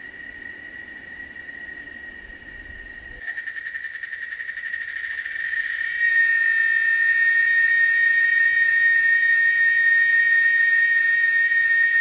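Cicada singing: a steady, high-pitched drone that grows louder about three seconds in and again, sharply, about six seconds in, then holds. A faint low rumble lies under it at the start.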